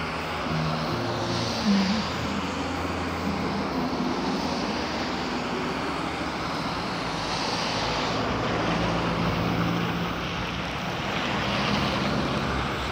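Road traffic on a snowy, slushy street: tyre hiss swells and fades as cars pass, over a steady engine drone. The engine of a Mercedes-Benz Citaro city bus grows louder as the bus approaches near the end.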